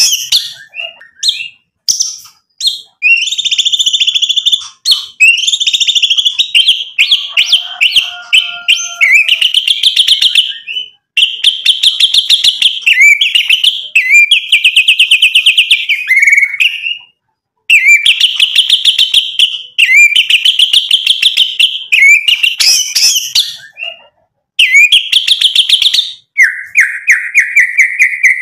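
White-rumped shama (murai batu) singing hard, running through its repertoire: loud whistled phrases of rapid repeated notes, one after another with only brief pauses. Near the end comes a lower, rapidly pulsed phrase.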